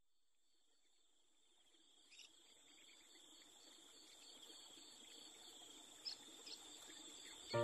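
Insects chirring steadily in a high pitch, fading in gradually from near silence and growing louder, with a couple of faint clicks.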